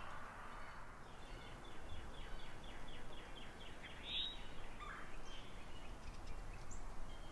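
Wild birds calling over steady outdoor background noise: a trill of rapid repeated high notes, about six a second, runs for a couple of seconds about a second in, followed by scattered short chirps.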